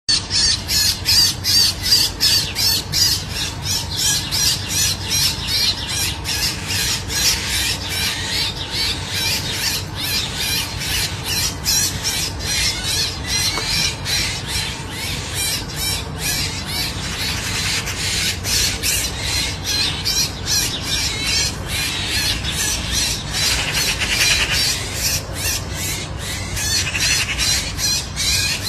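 A bird squawking over and over in rapid harsh calls, about three a second, without a break, over a steady low hum.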